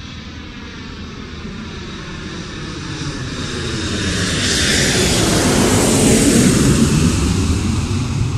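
Airplane flying past: engine noise building steadily to its loudest about six seconds in, then easing off as it passes.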